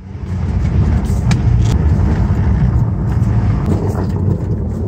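Mazda B2600i pickup's 2.6 L G6 four-cylinder engine running steadily while driving, heard from inside the cab. It is running on a swapped ECU from a B2200's 2.2 L F2 engine.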